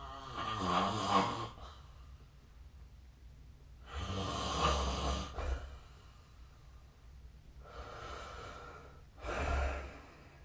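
A sleeping person snoring: three loud snores about four seconds apart, with a softer breath just before the last one.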